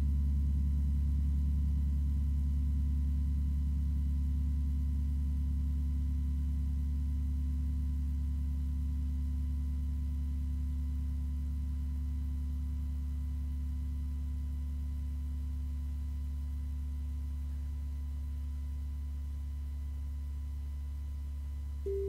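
A deep gong rings on after being struck, a low sustained hum with wavering overtones that slowly fades. Near the end a higher ringing tone is struck.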